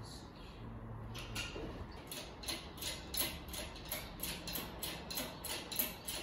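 Hand pump of a hydraulic engine hoist being worked to lift an engine: a quick, even run of clicks, about three or four a second, starting about a second in.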